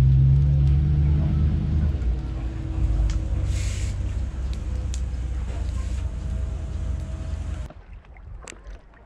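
An engine running with a steady low drone, loudest at first and easing about two seconds in, then cut off abruptly near the end.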